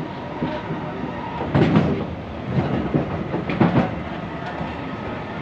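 Running noise of a C151B MRT electric train, heard from inside the car: a steady rumble of wheels on rail, with a cluster of loud clunks about a second and a half in and again near the end.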